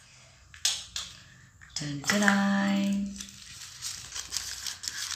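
Hands unwrapping tissue paper, rustling and crinkling, with a short rustle just before one second in and steady crinkling through the second half. About two seconds in, a person's voice holds a drawn-out exclamation for over a second, the loudest sound here.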